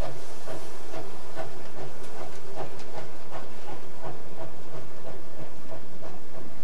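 Steam locomotive pulling a train away, its exhaust chuffing in an even beat of about two to three a second over a continuous hiss of steam. The engine is the Solothurn-Münster Railway's 1911 Ec 4/5 tank locomotive No. 11.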